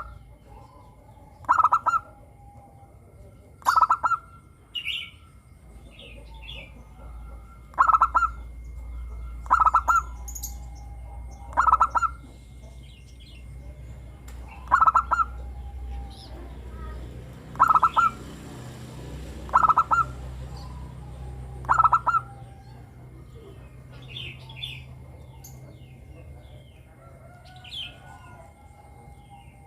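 Zebra dove (perkutut) cooing: a short, clear call repeated about every two seconds, nine times, then stopping about two-thirds of the way through. Faint higher chirps of other small birds sound between and after the calls.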